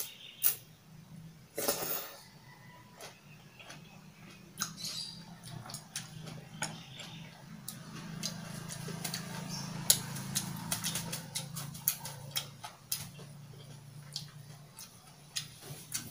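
Close-up eating sounds of kimchi ramen: a short slurp of noodles near the start, then chewing with many small wet mouth clicks and smacks over a low steady hum.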